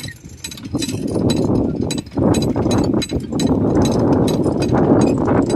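Hand-operated geared winch hauling in wire rope to tension a transmission-line conductor, its ratchet pawl clicking about three times a second over a steady rough grinding noise.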